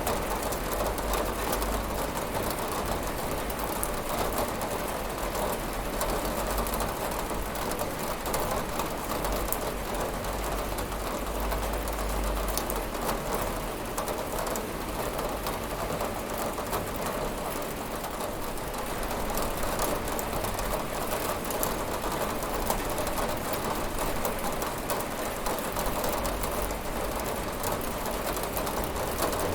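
Steady rain falling on a window: an even hiss with many individual drops ticking through it. A faint low rumble fades out about halfway through and returns near the end.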